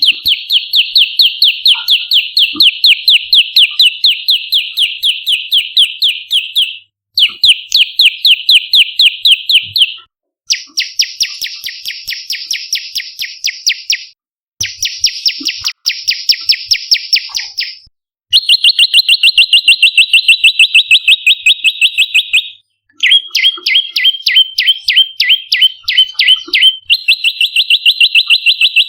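Ashy tailorbird (prenjak lumut) calling in rapid, loud runs of repeated high chirps. The runs last a few seconds each with brief breaks between them, and the note pattern varies from run to run.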